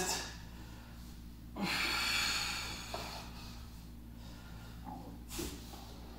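A man breathing out hard through a T-spine rotation stretch. There is one long exhale starting about one and a half seconds in and lasting over a second, then a short breath about five seconds in, over a faint steady low hum.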